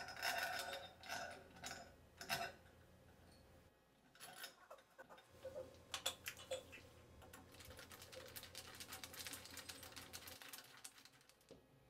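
Faint small metallic clicks and scrapes of screws being set and driven with a Phillips screwdriver into a chrome shower escutcheon plate, in scattered irregular ticks with a short lull about three seconds in.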